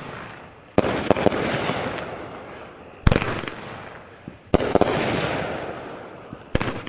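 Consumer firework going off in a series of four shots, about one and a half to two seconds apart, each a sharp bang followed by a crackling hiss that fades away.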